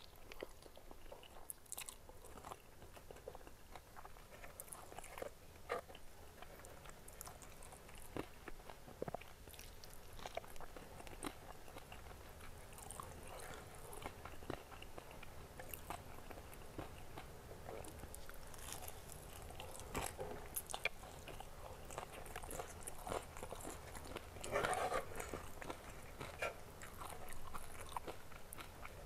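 A person chewing and biting spicy noodles and sambal-coated fried chicken close to the microphone, with many short crunches and clicks. A louder, denser stretch of crunching comes about five seconds before the end.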